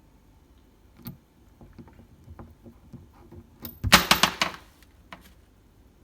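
Light clicks and knocks of a cabinet knob and its screw being handled against a wooden cabinet door, with a sharp knock about a second in and a quick loud rattle of several clicks about four seconds in.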